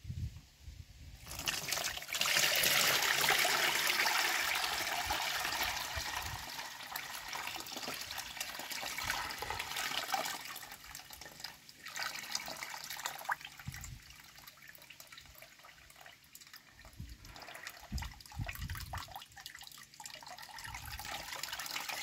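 Cloudy apple-vinegar liquid poured from a plastic bowl through a plastic mesh strainer into a plastic tub, splashing and trickling. The pour starts about a second in and is heaviest for the next few seconds, then continues as a thinner, uneven stream, with a few dull knocks of the containers.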